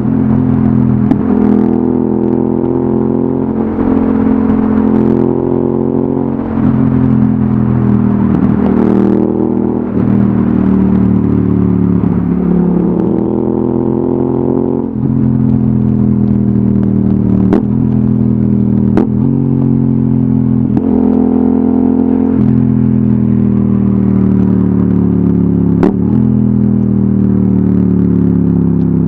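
Yamaha XSR700's 689 cc parallel-twin engine through an Akrapovic exhaust under way. The pitch climbs and drops again and again through gear changes, then falls steadily as the bike slows near the end, with a few sharp clicks along the way.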